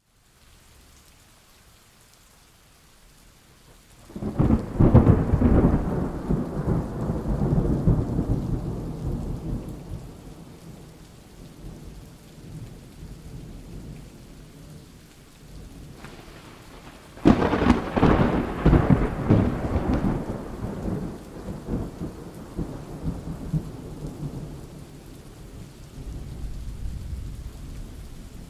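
Thunderstorm: steady rain with two claps of thunder, one about four seconds in and another about seventeen seconds in, each starting sharply and rolling off into a long low rumble.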